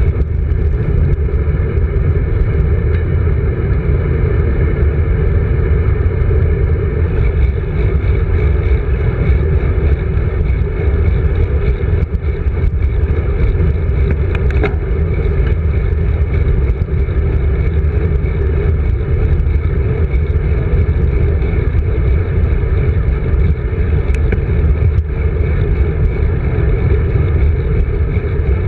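Wind buffeting the microphone of a GoPro mounted on a moving road bike's handlebars: a loud, steady, low rumble with tyre noise from the asphalt underneath.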